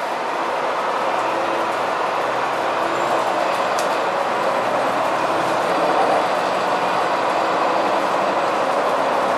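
Running noise of a Neoplan N4426/3 bus under way, with its MAN D2866 diesel and ZF 5HP602C five-speed automatic gearbox heard from inside. The sound is steady and grows slightly louder, with one sharp click about four seconds in.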